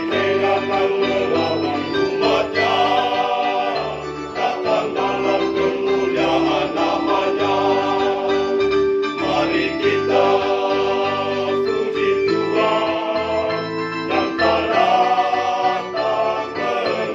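A mixed church choir singing a hymn in sustained phrases, accompanied by a Yamaha electronic keyboard playing chords and a bass line.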